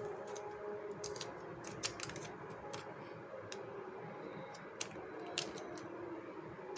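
Irregular small clicks and taps from hands handling a blind bag and the small toy inside it.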